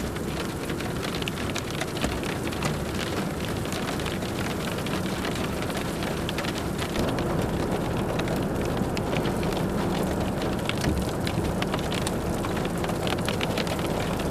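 Rain pattering: a dense stream of drop hits that grows a little louder about halfway through, over a steady low hum.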